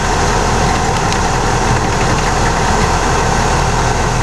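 Steady engine and road noise of a military vehicle heard from inside its cab while it drives.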